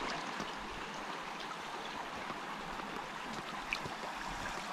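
Steady rush of a flowing stream.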